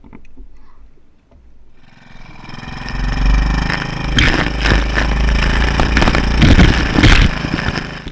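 A small wooden fishing boat's motor starts up about two seconds in and runs loud and steady, with water rushing and splashing against the hull as the boat gets under way. A few light wooden knocks come before it.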